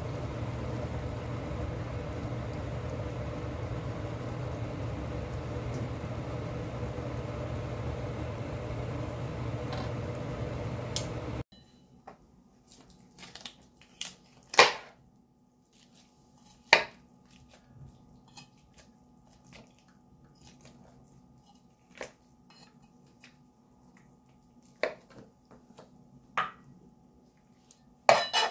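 A pot of chicken broth boiling on a gas stove, a steady rushing, bubbling noise, which stops abruptly about 11 seconds in. After that come several sharp knocks of a knife on a plastic cutting board, a few seconds apart, as cooked chicken is cut apart.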